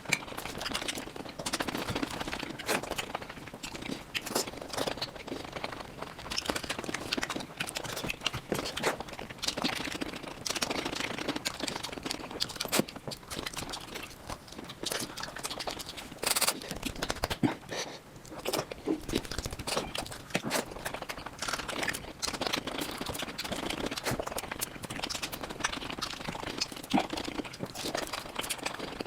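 Close-miked mukbang eating of mutton nalli (mutton marrow bones), played back at high speed: a dense, unbroken stream of chewing clicks, smacks and crunches.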